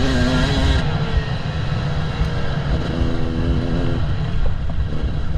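KTM 300 EXC single-cylinder two-stroke enduro engine running on the throttle, easing off about a second in and picking up again at about three seconds, over a constant low rumble.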